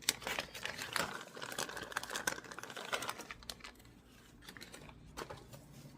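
Quick run of small clicks and taps as tiny miniature pieces are handled and set in place, busiest in the first half and sparser near the end.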